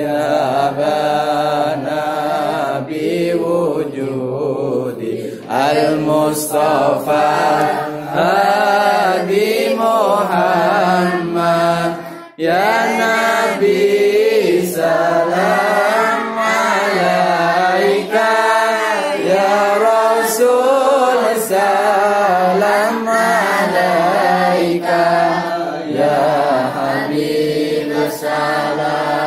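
Children's voices chanting an Arabic sholawat, a devotional song in praise of the Prophet Muhammad, with long drawn-out sung phrases and brief breaks between them.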